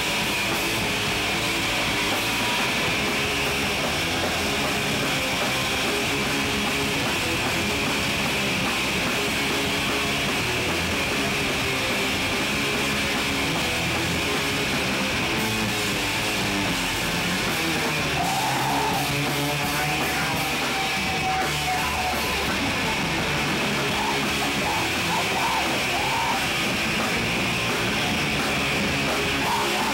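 A hardcore punk band playing loud and without a break: distorted electric guitars and pounding drums, with the singer shouting into the microphone.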